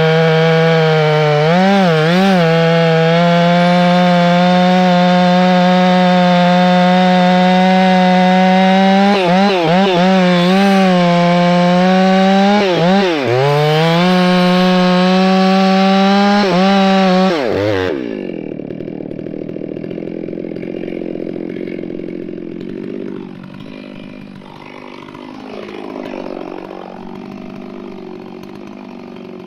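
Gas chainsaw with a long bar running at full throttle while cutting into a tree stump, its engine note dipping in pitch several times as the chain bites into the wood. About 18 seconds in the throttle is released and the saw drops to a much quieter idle.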